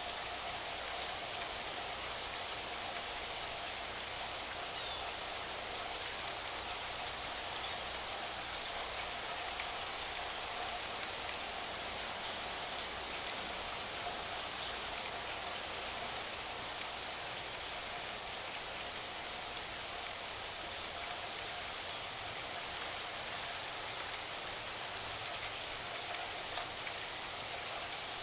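Steady rain: an even hiss with faint scattered ticks of drops.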